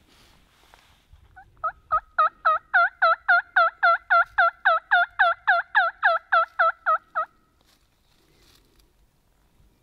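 A hunter's mouth-blown turkey call imitating a hen turkey, sounding a long run of about twenty yelps at about three a second. Each yelp breaks from a higher note down to a lower one. The run starts about two seconds in and stops about seven seconds in.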